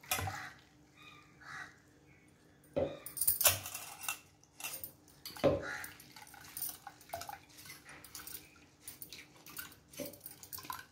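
Blended drumstick-stem pulp being strained through a steel mesh strainer into a steel bowl: juice dripping and trickling through the mesh, with several sharp clinks and scrapes of the strainer against the bowl as the pulp is pressed.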